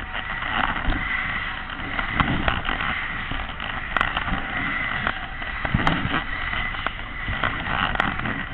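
Skate Jumper fairground ride in motion, heard from a rider's seat: a steady rush and rumble of air and machinery, with a few sharp clicks about four, six and eight seconds in.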